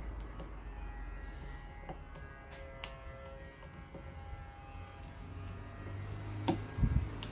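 Light clicks and knocks of a small screwdriver and metal parts as an old electric fan is being dismantled, with a sharp click about three seconds in and two louder knocks near the end, over a steady low hum.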